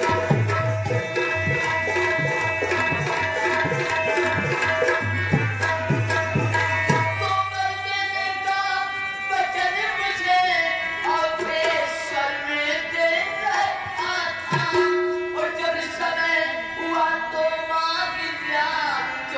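Live stage music: tabla playing a rhythm under a sustained melody, with a woman singing. The tabla's low strokes are heaviest in the first half.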